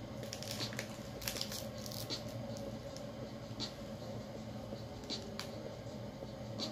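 Steady low room hum with scattered small clicks and rustles, a quick run of them in the first two seconds and a few single ones after.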